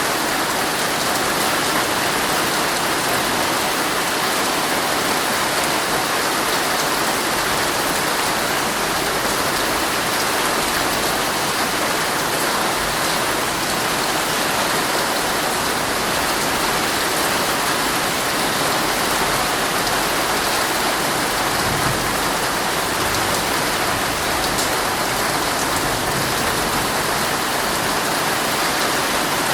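Heavy rain beating steadily on a tent's fabric, heard from inside the tent.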